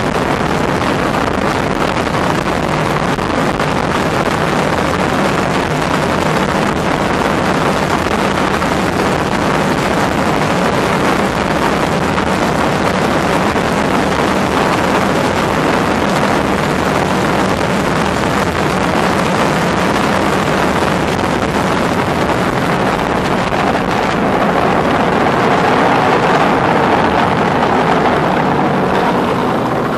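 Mercury 300R racing outboard driving a Liberator tunnel boat at high speed, running steadily with wind noise on the microphone; it gets slightly louder about three-quarters of the way through.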